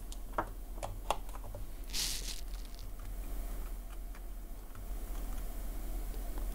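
A few light clicks and taps from small objects being handled on a workbench, with a short rustle about two seconds in, over a steady low electrical hum.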